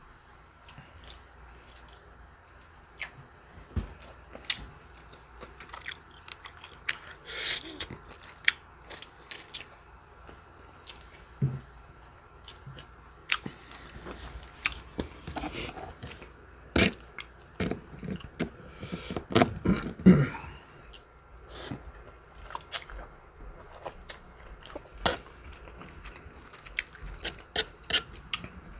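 A person chewing and biting food close to the microphone: irregular crunchy and wet mouth clicks, with a louder bout of chewing about twenty seconds in.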